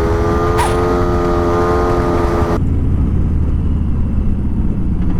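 Motorcycle engine running at a steady cruise over a low rumble of wind. About halfway through, the engine note and the hiss above it cut off abruptly, leaving only the low rumble.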